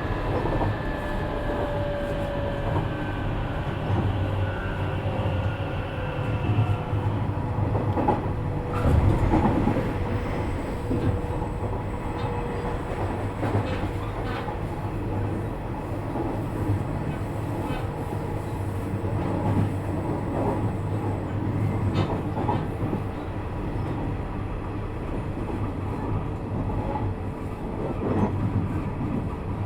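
Nishitetsu 3000 series electric train running, heard from inside motor car Mo 3309: a steady rolling rumble with the traction motors' whine slowly falling in pitch over the first several seconds, and the wheels clacking over rail joints a handful of times.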